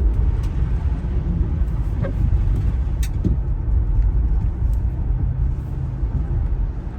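Steady low rumble of a car driving on a winter road, heard from inside the cabin, with a faint tick about three seconds in.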